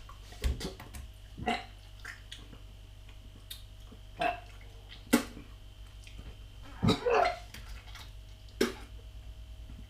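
A man gagging and making mouth and throat noises while chewing a mouthful of century egg (thousand-year-old egg), which he finds repulsive. The noises come as about seven short, separate bursts.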